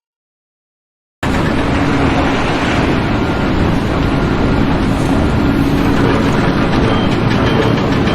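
About a second of dead silence, then loud, steady engine noise of a vehicle or heavy machine cuts in suddenly.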